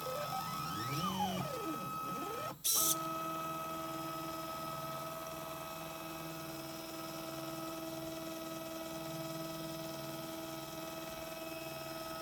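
Stepper motors of a polar pen-plotter drawbot whining, the pitch sliding up and down as the motors change speed. A short loud hiss comes about two and a half seconds in, after which the whine holds at one steady pitch.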